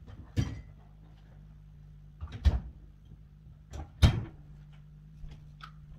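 Knocks and clunks of things being handled in a kitchen: three sharp ones about half a second, two and a half and four seconds in, the last the loudest, with a few lighter taps after. A steady low hum runs underneath.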